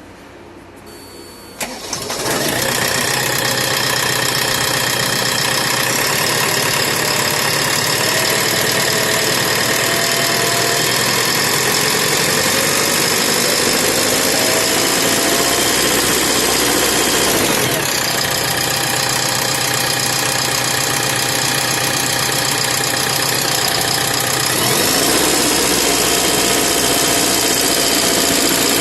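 A JCB 3DX backhoe loader's BS4 diesel engine starts about two seconds in, then runs steadily with an abnormal noise. Its sound shifts about two-thirds of the way through and again near the end.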